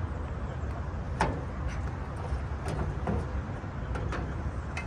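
Wind rumbling steadily on the microphone, with a few sharp knocks, the loudest about a second in.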